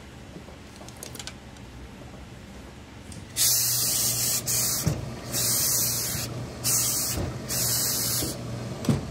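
Steam iron letting out about five hissing bursts of steam in quick succession, starting some three seconds in, as a suit jacket's hem is pressed. Two soft knocks of the iron against the table, one midway and one near the end.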